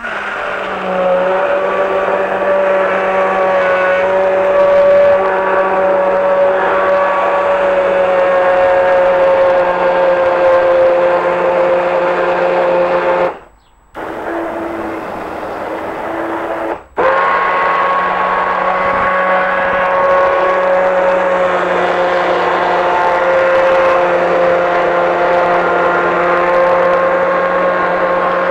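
Electric immersion blender running in a stainless steel bowl, puréeing potato and wild garlic soup: a steady motor whine. About halfway through it cuts out for a few seconds, then runs on at the same pitch.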